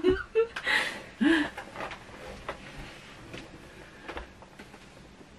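A short trailing laugh and breaths, then a few faint knocks as a boxed Funko Pop vinyl figure is lifted and handled.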